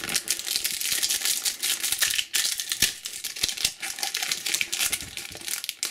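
Foil wrapper of a Panini Adrenalyn XL booster pack being torn open and crinkled by hand: a dense run of crackles and rustles with many small sharp clicks.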